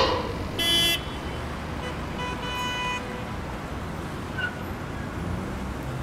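Cartoon city-street ambience: a steady traffic hum with a short car-horn toot just under a second in and a fainter horn-like tone about two and a half seconds in. A sudden loud burst right at the start is the loudest sound.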